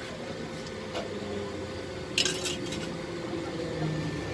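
A short cluster of sharp metal clinks a little over two seconds in, with a fainter click about a second in, from metal tools and parts being handled at a welding bench, over a steady low hum.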